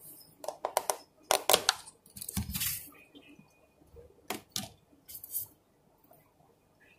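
Clear plastic tubs being handled: a series of sharp clicks and knocks, with short bursts of rustling, fading out over the last couple of seconds.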